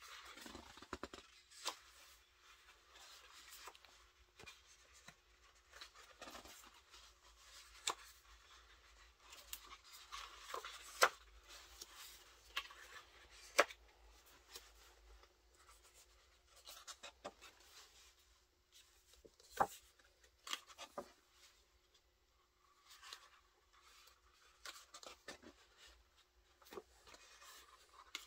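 Pages of a large hardcover photobook turned by hand: faint paper rubbing and sliding, with a few sharp page snaps.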